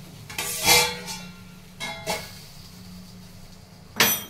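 Metal kitchen utensils clink against a pan in two short clatters, over a steady low hum. Near the end comes a sharp metallic clack of a door bolt being drawn.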